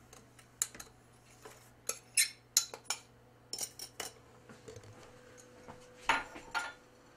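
Glass measuring cups knocking and clinking against the clear plastic bowl of a food processor as sugar is tipped in: a string of light taps, with a few louder knocks about six seconds in.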